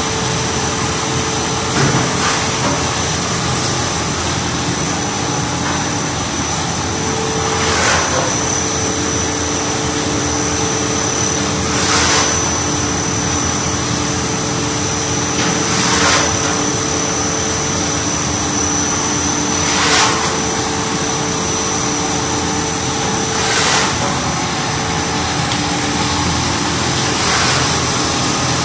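A 1000 mm stretch film extrusion line running: a steady mechanical hum with a couple of constant whining tones, and a short hiss that swells up at intervals of about four seconds.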